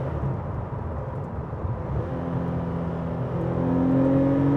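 Porsche 993's 3.8-litre Super Cup flat-six heard from inside the cabin, pulling under throttle. After a rougher first two seconds the engine note firms up and rises slowly in pitch and loudness as the car accelerates.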